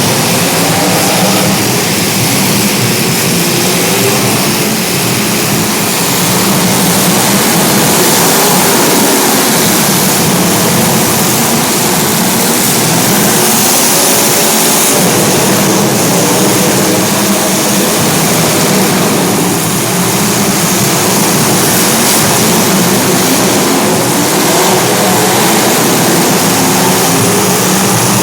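Several small racing engines running together in a race, their pitches rising and falling as the cars go round.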